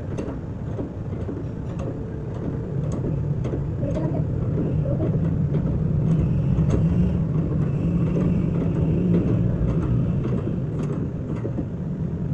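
A motor vehicle engine running with a low rumble that swells through the middle and then eases off, with scattered sharp metallic clicks and taps over it.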